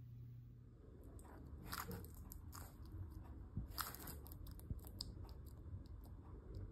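Bearded dragon biting and licking a soft banana: faint, irregular wet clicks and smacks of its jaws and tongue, the loudest about two and four seconds in.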